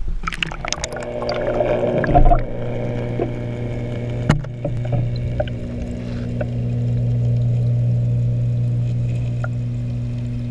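Water splashing and bubbling as a GoPro in its waterproof housing goes into a garden pond, then a steady low hum heard underwater through the housing, with a few short knocks.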